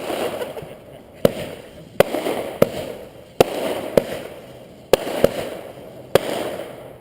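Fireworks going off: about eight sharp bangs at uneven intervals, each followed by a rolling echo that fades before the next.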